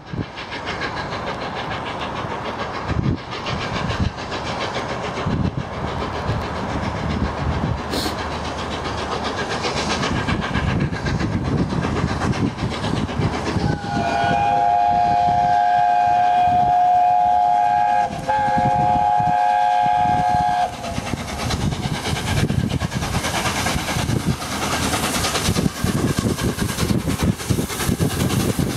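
LNER Peppercorn A1 Pacific steam locomotive 60163 Tornado running in with its train, steam exhaust and wheel noise. About halfway through it sounds its chime whistle, several notes at once, for about seven seconds with a brief break near the end.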